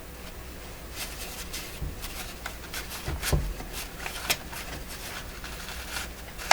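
Cloth rags being stuffed in behind a glued paper speaker cone: a run of rustling and scraping handling noises with a dull knock partway through, and a sharp click at the end.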